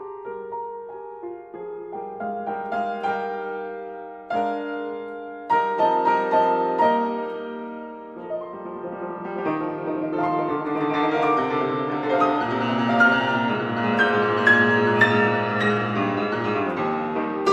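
Background piano music: a melody of single notes that builds to fuller chords and grows louder from about halfway through.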